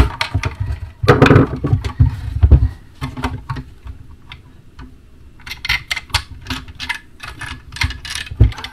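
Hand screwdriver driving screws into a power point's plastic plate on a timber panel: a run of small sharp clicks and scrapes. Heavier knocks and handling come in the first three seconds.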